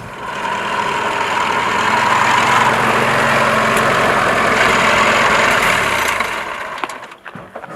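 An old jeep's engine running as it drives along a dirt track, a steady rushing noise that fades out near the end.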